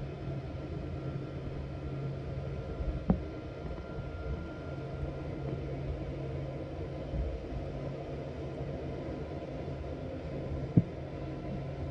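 KC-135 Stratotanker's jet engines running at low power, heard from inside the cockpit as a steady hum and rush. Two short sharp clicks, about 3 seconds in and near the end.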